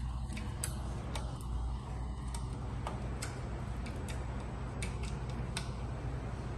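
Light metal clicks at an uneven pace, about one or two a second, from a hex wrench working the screws that clamp the scooter's head in place, over a steady low hum.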